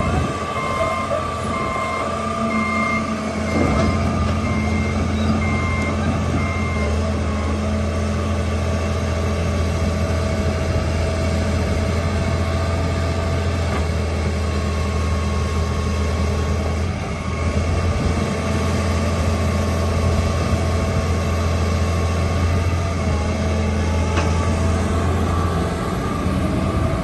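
John Deere 350D LC excavator's six-cylinder diesel engine running steadily, with its travel alarm beeping repeatedly until about seven seconds in.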